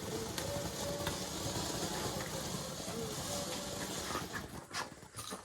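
Burning firework hissing and sizzling steadily, then dying away near the end with a few sharp pops.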